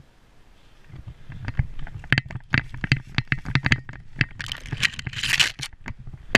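Close scraping and crackling with many irregular sharp knocks, starting about a second in and growing busier, with a burst of rustling noise near the end.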